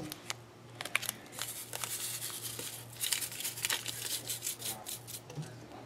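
A plastic seasoning packet of Onga crinkling and being torn open, with scattered light clicks, in two spells of rustling, over a steady low hum.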